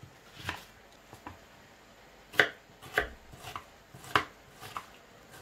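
Kitchen knife cutting a peeled onion on a plastic cutting board: about seven irregular knocks of the blade striking the board, the loudest about halfway through.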